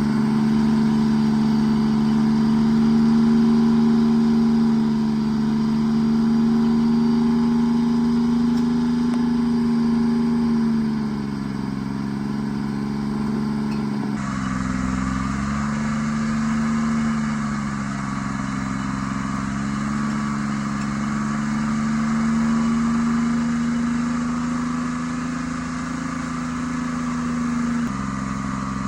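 Tree Farmer forwarder's diesel engine running steadily, its pitch dipping briefly a few times.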